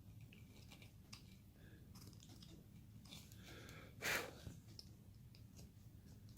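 Faint cuts of a hand carving tool shaving basswood: soft scraping and crackling, with one louder cut about four seconds in. A low steady hum runs underneath.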